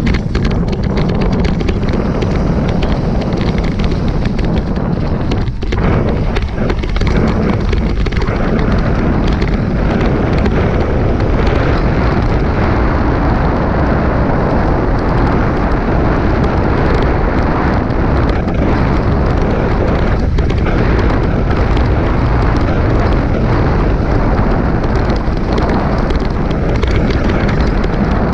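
Loud, continuous rumble of wind and trail noise on a helmet-mounted action camera during a fast mountain-bike descent, with constant small knocks and rattles from the jolting ride on a loose mount.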